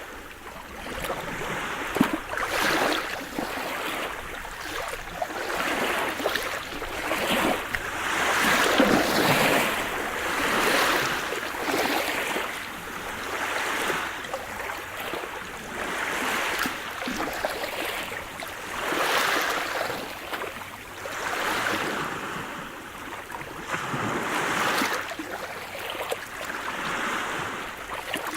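Sea surf: small waves washing and breaking on a shore, swelling and ebbing every second or two, with the odd sharp splash.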